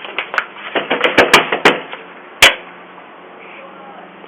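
A quick, irregular run of sharp taps and knocks, the loudest about two and a half seconds in, followed by a steady low hum.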